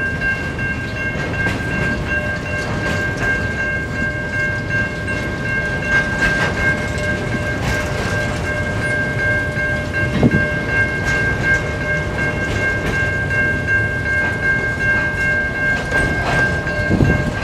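A freight train's boxcars rolling past, their wheels running steadily over the rails with a low rumble. A steady high-pitched whine sits over it, and there are a few louder clunks about ten seconds in and again near the end.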